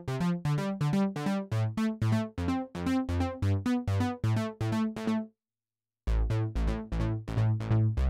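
Martinic AX73 software synthesizer, an emulation of the 1986 Akai AX73, playing its 'Disco Bass' preset, an Italo disco bass with a symmetry-modulated saw/triangle wave. It plays a run of short, plucky bass notes at about four a second that stops about five seconds in, and a deeper bass line starts about a second later.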